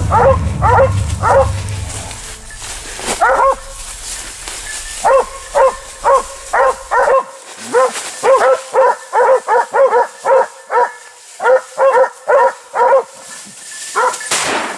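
Hunting dogs barking and yelping at a wild boar, a quick run of high-pitched barks several a second that comes in bunches and is densest in the second half.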